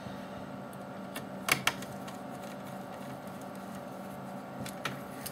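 Small metal clicks from a magnetic screwdriver and screws on a laptop heat sink: two sharp clicks about a second and a half in and a few fainter ones, over a faint steady hum.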